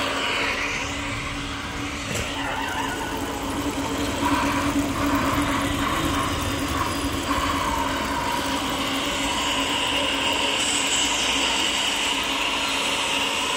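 Racing-truck engine sound effect, a steady engine drone with some road noise, that rises slightly about four seconds in. It comes from a soundtrack, not from the unpowered diecast toy trucks.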